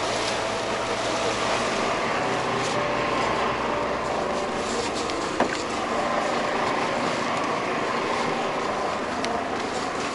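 Small boat's engine running steadily under wind and water noise, with one sharp knock about five seconds in.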